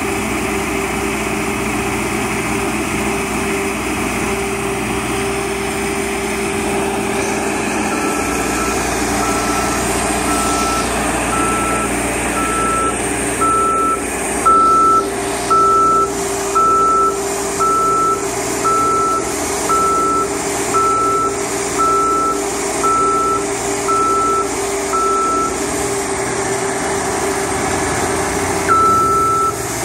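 Tennant 830-II street sweeper's engine running steadily while a single-tone warning beeper sounds about once a second, starting about a quarter of the way in, pausing briefly near the end and starting again. The beeper is the alarm that sounds as the rear hopper rises on its scissor lift.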